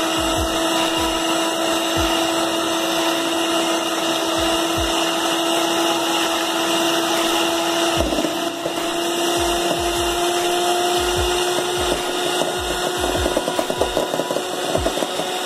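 Electric hand mixer running steadily, its beaters whisking egg in a plate: a constant motor whine with irregular low knocks.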